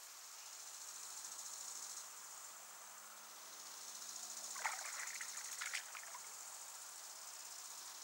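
Steady high, fast-pulsing chirr of insects. About four and a half to six seconds in, a short burst of water splashing comes as a frog leaps out of the water at an egg-laying emperor dragonfly.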